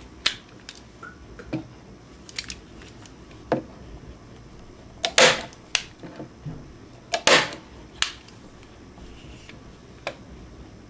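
Hand stapler driving staples through thin plywood gussets into a wooden wing rib: a string of sharp snapping clicks about a second apart. The loudest come about five seconds in and again about two seconds later.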